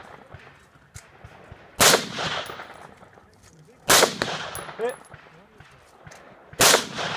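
Three gunshots on a shooting-competition stage, about two to three seconds apart, each trailing off in a short echo.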